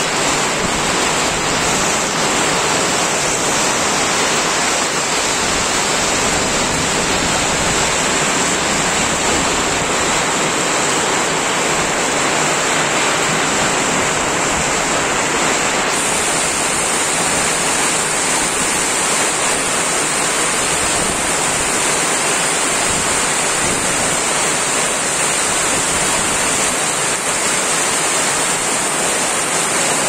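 Heavy nor'wester rain pouring down in a steady, loud, even rush with no let-up.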